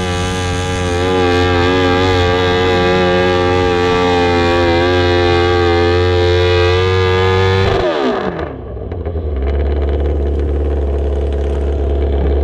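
Modified garden tractor engine running at full throttle under load as it pulls a stoneboat sled, its pitch wavering. About eight seconds in, the throttle is chopped and the pitch falls away quickly, leaving a lower steady idle.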